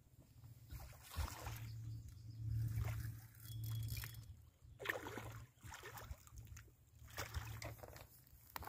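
Faint water sloshing and light splashing, with a low rumble underneath.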